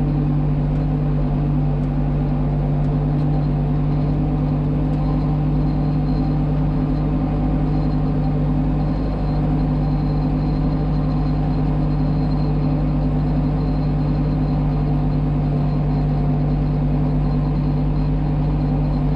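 Tractor diesel engine running at a steady speed under load while pulling a disc harrow through dry ploughed ground.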